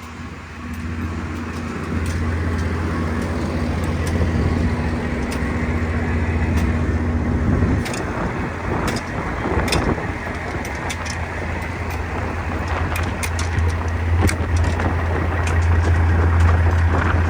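Tractor engine running steadily to power a grain vacuum, a low drone that picks up about two seconds in and changes note around eight seconds. Scattered sharp clicks and knocks sound over it.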